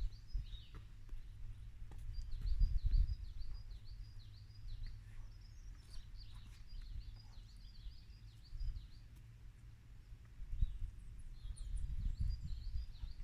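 A songbird singing runs of quick, repeated chirps: one run from about a second in to about seven seconds, another near the end. Under it sits a low rumble on the microphone, loudest about two to three seconds in and again near the end.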